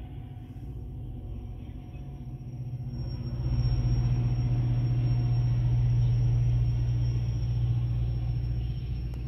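GO Transit commuter train with its diesel locomotive passing, a deep steady rumble that swells about three seconds in as the locomotive comes by, with a thin steady high whine above it.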